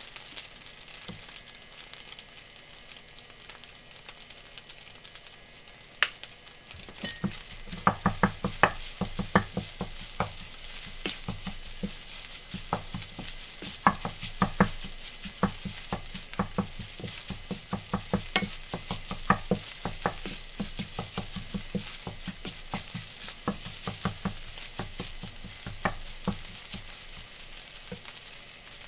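Fried rice sizzling in a frying pan while a wooden spatula stirs and turns it. From about seven seconds in, the spatula knocks and scrapes against the pan in quick, irregular clicks.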